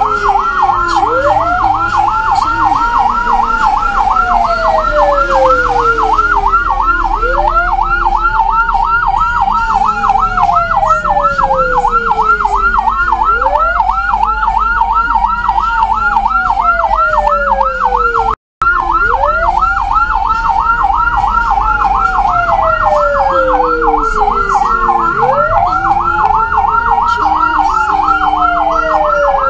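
Ambulance siren sounding two tones at once: a fast warble running without a break, and a slower wail that climbs quickly and falls slowly, repeating about every six seconds. Both cut out for an instant a little past the middle.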